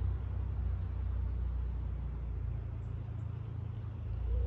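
Low, steady engine and exhaust rumble of a car out of sight. It eases a little past the middle and swells again near the end.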